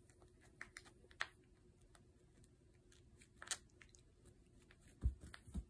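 A cat biting and chewing a small toy mouse, with scattered faint clicks and crackles of teeth on the toy, then two dull thumps near the end.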